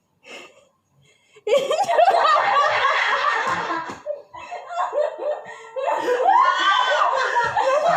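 People laughing in two bouts: the first starts about a second and a half in, and the second comes near the end.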